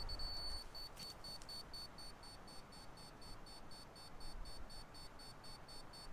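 Laser level receiver beeping rapidly, about four high-pitched beeps a second after a brief steady tone at the start. The receiver is being held against the beam of a Topcon rotating laser level, and the rapid beeping signals that it is not yet at the beam's height.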